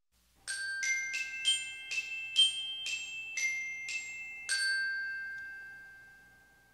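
Logo intro jingle: a short melody of about ten struck, bell-like notes, each ringing on, the last held and fading away.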